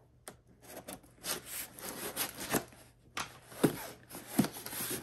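Cardboard box being opened by hand: an irregular run of scraping, rasping strokes as the tape and cardboard are cut and worked, with a couple of sharper knocks near the end.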